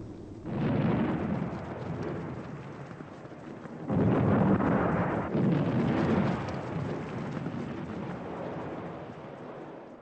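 Distant artillery fire: deep rumbling booms, one about half a second in and two more around four and five seconds in, each dying away slowly.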